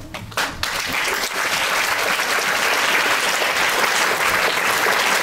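Audience applauding: a few scattered claps, then within the first second a steady, full round of clapping.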